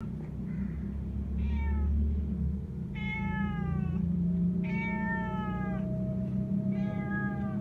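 Kitten meowing four times, high-pitched cries of about a second each that fall slightly in pitch, over a steady low hum.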